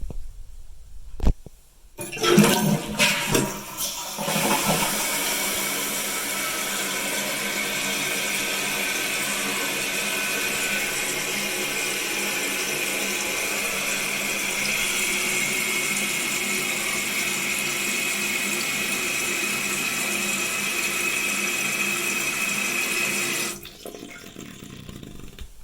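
Jacuzzi Lyndsay toilet flushing: a sharp click about a second in, then a loud, uneven rush of water, settling into a steady hiss with a faint high whistle as the tank refills, cutting off sharply near the end as the fill valve shuts.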